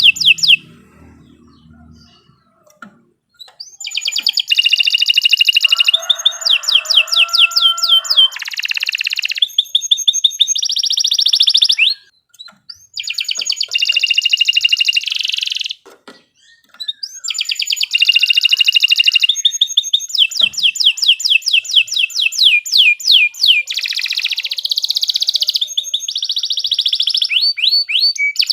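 Domestic canary singing long, loud phrases of rapid high trills and rolling sweeps, with a quiet spell at the start and two short breaks.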